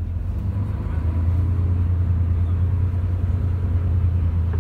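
Coach engine and road noise heard from inside the passenger cabin while under way: a steady low drone that gets louder about a second in.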